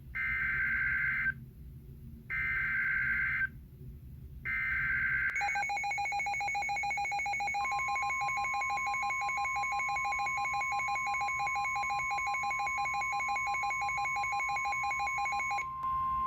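NOAA Weather Radio SAME alert header: three one-second bursts of buzzing digital data tones, about a second apart, opening a severe thunderstorm warning. Then a rapidly pulsing electronic alarm sounds, joined about two seconds later by the broadcast's long steady warning tone; the pulsing stops near the end while the steady tone carries on.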